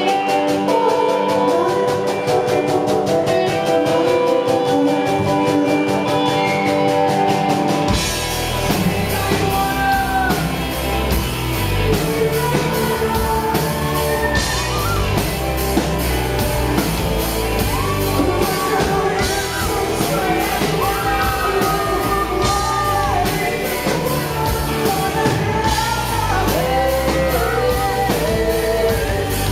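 Live pop-rock band playing, recorded from the audience. Sustained chords over a fast, even high ticking give way, about 8 seconds in, to the full band with bass and drums kicking in under the singing.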